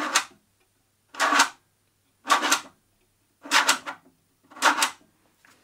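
3D-printed plastic blastgate being switched from port to port. Its rotary selector clacks into its detent five times, about a second apart, locking onto each inlet in turn.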